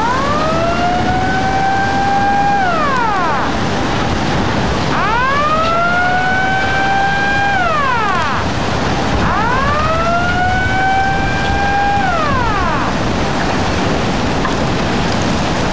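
Tsunami warning siren wailing three times: each cry rises, holds steady for a couple of seconds, then falls away, over a steady rush of wind and water.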